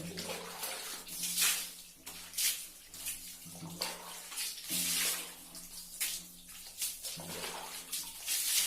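Water splashing and pouring in short surges, about one a second, over a steady low hum.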